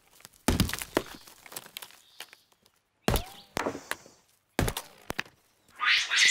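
Bearded capuchin monkey pounding a palm nut with a heavy stone hammer on a rock anvil: sharp knocking strikes, a heavy one about every one and a half seconds with lighter knocks between. A brief hissing burst comes near the end.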